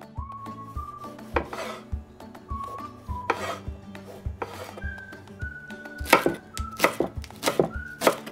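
Kitchen knife halving cherry tomatoes on a wooden cutting board: a series of sharp knocks as the blade meets the board, the loudest about six to eight seconds in. Background music with a steady beat runs underneath.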